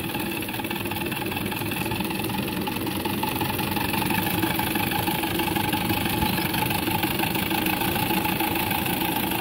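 Live-steam engine of a 1:5 scale model steam lorry running under way in high gear: a fast, even mechanical beat with steady tones over it, getting a little louder about four seconds in.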